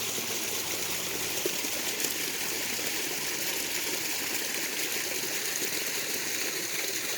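Garden pond waterfall running steadily, a continuous splashing of falling water.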